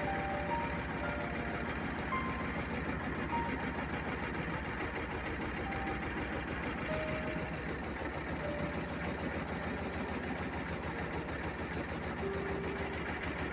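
T-25 tractor's two-cylinder air-cooled diesel running steadily with its even chugging beat as the tractor drives, with a few short, steady notes at different pitches heard faintly over it now and then.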